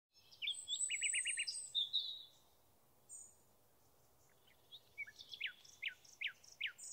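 Songbirds singing: varied high whistles with a quick trill of short notes in the first two seconds, then after a lull a string of repeated downward-slurred whistles.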